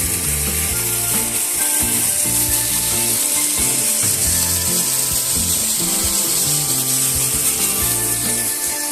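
Background music with changing low notes under a loud, steady high-pitched hiss that eases off near the end.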